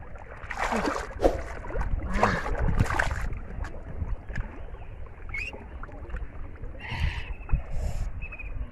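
Pond water splashing and sloshing in several short bursts as a person wades and works their hands through the water and floating water hyacinth.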